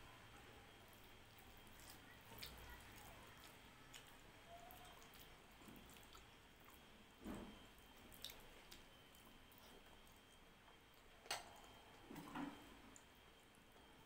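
Faint eating sounds: rice and dal being squished and mixed by hand on a plate, with a few short, soft wet clicks, the sharpest a little past the middle. Otherwise near silence.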